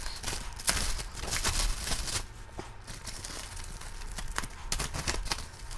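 Clear plastic bag and thin foam packing wrap crinkling and rustling in the hands as they are pulled off and bunched up, in irregular crackles that are busiest in the first two seconds and pick up again near the end.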